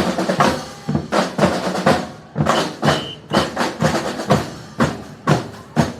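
Drum troupe playing a steady, driving rhythm, with snare and bass drums striking together.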